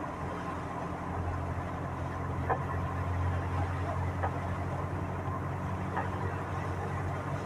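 Vehicle engine running steadily with a low hum, heard from inside the cab while driving in heavy rain, with the hiss of rain and wet road underneath. A few faint ticks come every second or two.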